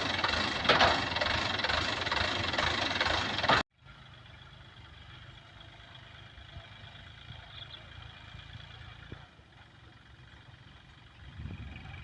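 Vehicle engine running loudly, cut off abruptly about four seconds in, followed by a much quieter, steady engine hum.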